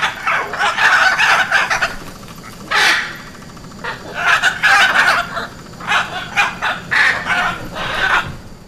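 Hyacinth macaws (Anodorhynchus hyacinthinus) calling: loud squawks in a run of bursts with short gaps between them.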